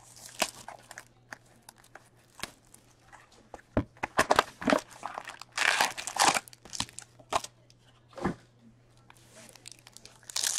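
Cellophane shrink wrap being torn and crinkled off a hockey card box, then a cardboard box flap opened and foil card packs handled, in irregular rustles, crackles and tearing sounds.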